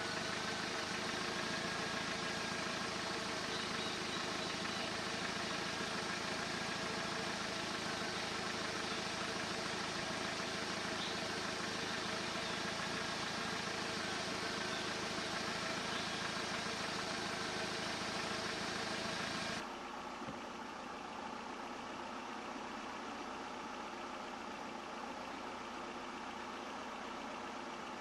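A steady mechanical hum like an engine running, mixed with noise. About two-thirds of the way through it drops suddenly to a quieter, duller sound.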